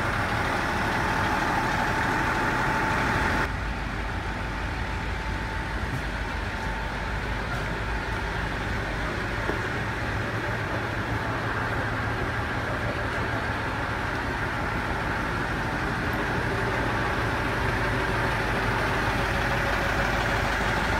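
Aizu Railway diesel railcar's engine running steadily beside the platform, its sound changing abruptly about three and a half seconds in.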